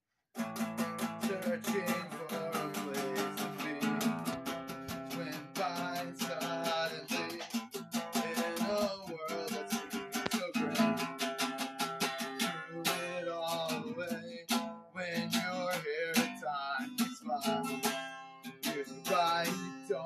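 Acoustic guitar strumming chords in a steady folk-punk rhythm, starting suddenly about half a second in.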